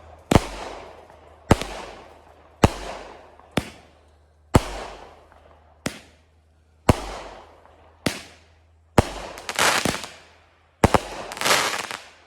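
A small 200-gram consumer firework cake firing: about ten sharp shots roughly a second apart, each followed by a fading noisy tail, the last two with longer, denser tails.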